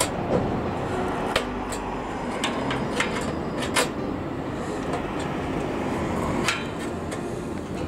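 Pliers gripping and levering a bent steel plate next to a bicycle's rear sprocket, giving about six short, sharp metal clicks at irregular moments over a steady background noise. The plate is being bent back because it rubs and stops the chain from turning.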